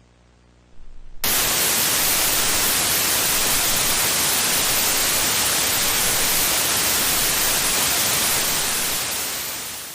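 A faint low hum, then about a second in a loud, steady hiss of television static, as of a broadcast that has lost its signal; it fades out near the end.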